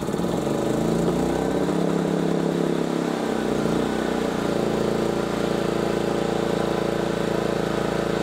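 Hyundai HY3200SEI inverter generator's 210cc four-stroke petrol engine catching on its electric key start and running. Its note shifts for the first few seconds, then it runs steadily.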